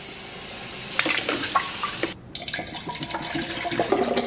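Kitchen faucet running, water streaming into a coffee machine's plastic water tank and splashing into a stainless-steel sink, with a few light knocks. The water sound breaks off briefly about halfway.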